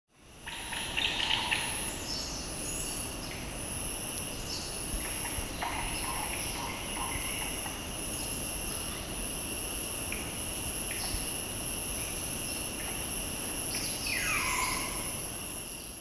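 Forest ambience: insects keep up a steady high-pitched drone, one of them pulsing regularly, with scattered bird calls and a falling bird call near the end.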